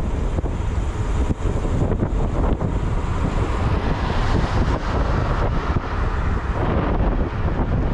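Wind buffeting the microphone while riding at speed, over a steady rumble of vehicle and road noise.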